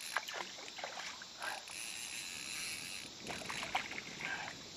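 Water splashing in short bursts as a hooked gar thrashes at the surface, the heaviest splashing about three to four seconds in.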